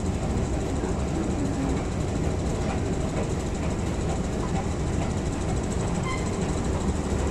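Steady low rumble of an escalator running down into an underground MTR station, with the station's echoing ambience.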